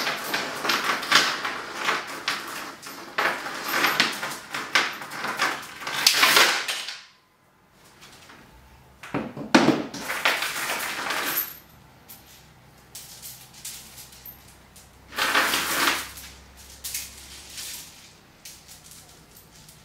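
Steel chain links clinking and rattling against each other as the chain is worked with a bolt cutter and handled. The clatter comes in bursts, busiest over the first seven seconds, then again twice after a short quiet gap.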